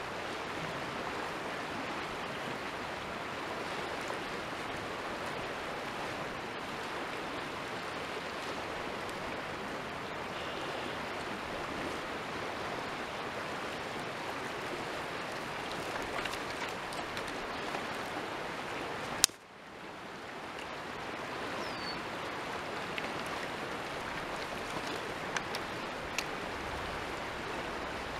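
Steady rushing of a creek's flowing water. A few faint clicks sound in the second half, and one sharp click comes about two-thirds of the way through.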